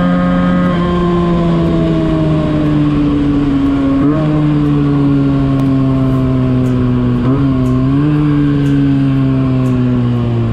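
Benelli 302S twin-cylinder engine running hard at high revs on a full-throttle top-speed run. Its pitch steps down about a second in, then holds and sags slowly, with brief wavers about four and seven seconds in.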